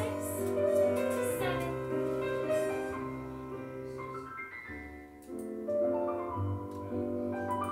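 Recorded piano accompaniment for a ballet class, held chords changing about once a second, stopping abruptly at the end.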